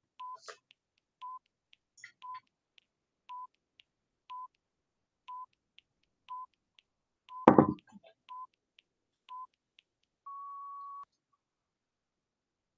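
Countdown timer beeping once a second: ten short, identical beeps, then one longer, slightly higher tone at zero. About seven and a half seconds in, a single brief louder bump.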